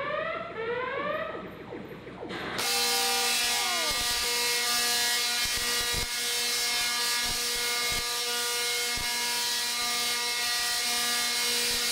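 A repeating rising whoop tone for the first second or two, then a large Tesla coil starts firing about 2.5 s in. Its arcs give a loud, steady electric buzz with a few sharp cracks as they strike a metal cage.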